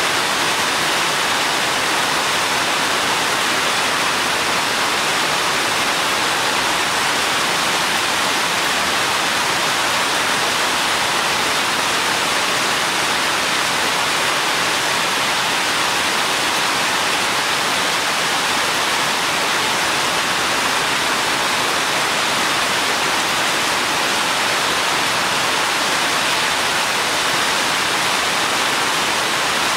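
Steady rain falling on a forest path, an even hiss.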